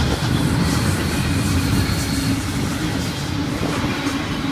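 Double-stack container well cars of an intermodal freight train rolling past: a steady rumble of steel wheels on rail with faint clicks.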